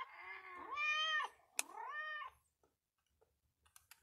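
A cat meowing: two drawn-out meows, each rising then falling in pitch, in the first two and a half seconds, followed by only faint ticks.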